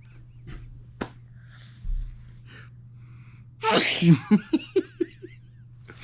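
A small child sneezes loudly about two-thirds of the way through, followed by a quick run of short sounds from the child's voice.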